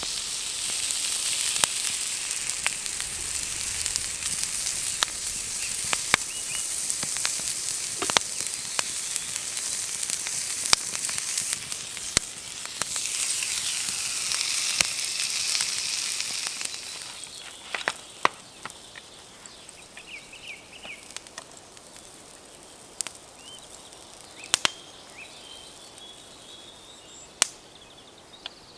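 Steak sizzling in oil on a skillet over a wood campfire, with the fire crackling in sharp pops. About two-thirds of the way through the sizzle dies down, leaving the crackle of the fire.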